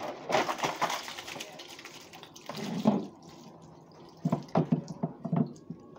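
Wet chicken spaghetti sliding and slopping out of a plastic cooler into foil pans. A dull thump comes about halfway, and a run of short thuds near the end as the cooler is shaken empty.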